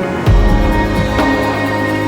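Background music with a steady bass line and sustained tones.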